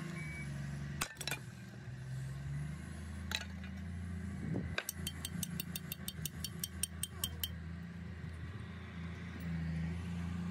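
Workshop machinery running with a steady low hum, with a few sharp metal knocks and then, about halfway through, a rapid run of clicks at about six a second lasting two to three seconds.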